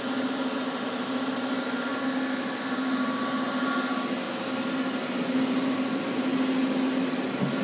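Steady electrical hum and fan whir of a powered-up 1994 Daewoo Puma 15 CNC lathe, from its control cabinet and cabinet cooling fans, with one constant low tone.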